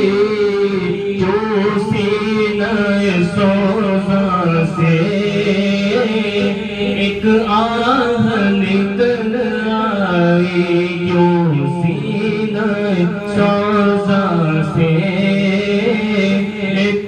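A man singing a devotional Urdu kalam in praise of the Prophet into a microphone, in long held notes with wavering ornaments.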